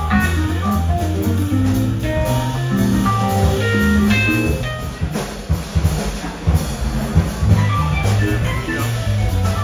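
A live band playing: electric guitar lines over a drum kit and keyboard. About five seconds in the music turns rougher and noisier before the notes come back.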